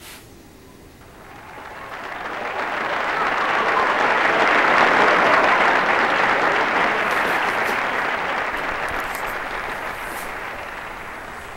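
Applause that swells up about a second in, peaks midway and slowly fades away.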